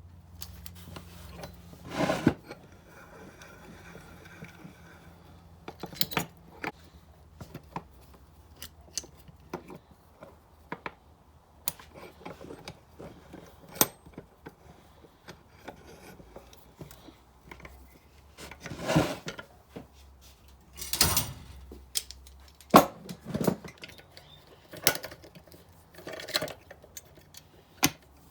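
Metal hand tools clinking, knocking and scraping against a motorcycle brake caliper in irregular clanks, while someone works at a broken caliper bolt stuck in it.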